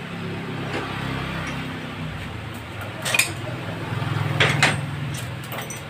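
Metal clinks and clanks as the cylinder head of a Hero Honda Splendor NXG engine is worked loose and lifted off. There is one sharp clink about three seconds in, a louder cluster about a second later, and light ticks near the end, over a steady low hum.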